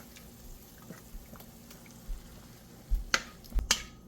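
Raw chicken pieces being put into a pan of cooked-down onion on low heat: soft wet plops and light taps, then a few sharp knocks against the pan about three seconds in.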